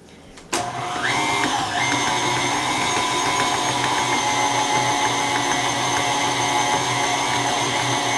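KitchenAid Artisan stand mixer switching on about half a second in, its motor whine rising briefly as it comes up to speed, then running steadily as the beater works thick cookie dough.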